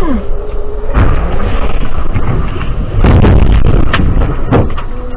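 Car collision: a sudden impact about a second in, then a louder crashing bang about three seconds in, followed by a couple of sharp knocks.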